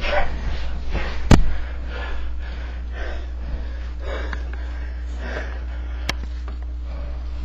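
Heavy, rhythmic breathing of wrestlers grappling on the floor, with a sharp thump about a second in and a fainter knock near the end, over a steady low electrical hum.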